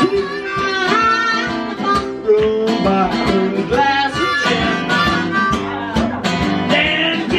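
Live blues played on harmonica with acoustic guitar: the harmonica plays bending, sliding notes over a regular strummed guitar rhythm.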